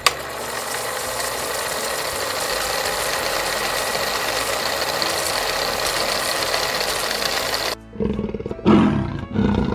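A steady, dense noisy sound for about eight seconds, cutting off suddenly. Then a big cat's loud growling roars begin, taken to be a leopard's, heard as the answer appears.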